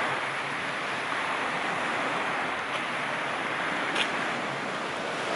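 Steady wash of small waves on the Okanagan Lake shore, an even hiss with no break, and a faint tick about four seconds in.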